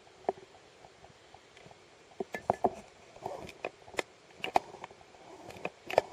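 Irregular sharp clicks and light knocks over a faint hiss: one early, several close together in the second half, and a loud one near the end.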